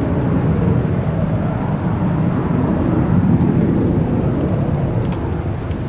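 Cessna Citation business jet's twin rear-mounted turbofan engines climbing away after takeoff: a steady low jet rumble that swells about halfway through and eases slightly near the end.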